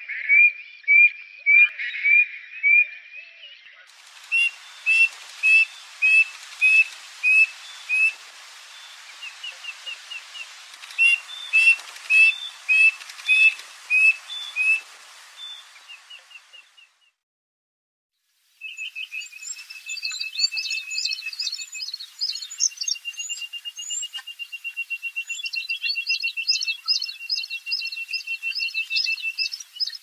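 Painted bush quail calling: runs of clear whistled notes, about two a second, with softer, quicker notes between the runs. After a short silence, bush quail call again as a long steady trill with higher chirping notes over it.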